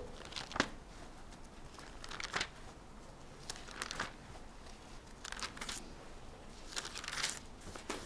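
Thin Bible pages rustling as they are turned to look up a passage: a handful of brief, faint paper rustles spread through an otherwise quiet room.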